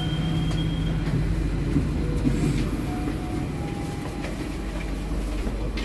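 Steady low rumble inside an economy-class passenger train carriage, with a few light clicks and knocks.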